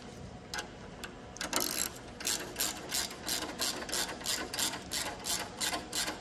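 Hand ratchet clicking as a fitting on the turbocharger's pipework is turned, a steady run of about four clicks a second starting about a second and a half in.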